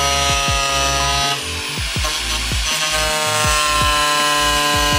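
DeWalt angle grinder whining at full speed as its disc cuts into a car's rear bumper. Partway through, the whine weakens and turns rougher for about a second and a half as the disc bites in, then steadies again.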